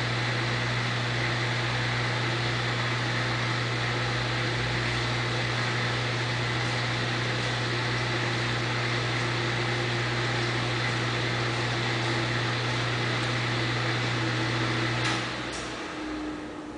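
Precision Matthews PM-1340GT metal lathe running with a steady machine hum. The sound drops away about fifteen seconds in.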